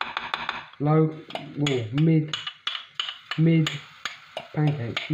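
Kitchen utensils clinking against a batter jug and frying pan while pancake batter is portioned into the pan, with a quick run of clicks in the first second and a few more scattered after.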